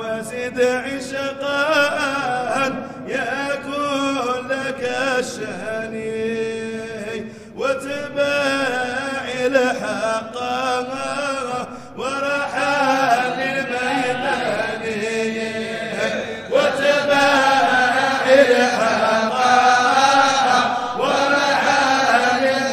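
Sufi qasida chanted in Arabic, long sung phrases that pause briefly about every four to five seconds.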